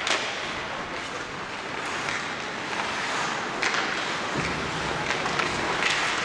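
Ice hockey play in an arena: steady scraping of skates on the ice, with several sharp clacks of sticks and puck.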